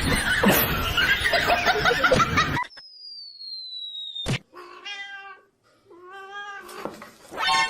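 A dense noisy stretch with voices, then, after a cut, a thin falling whistle-like tone and a click. A cat then meows: two drawn-out, wavering meows and a short louder one at the end.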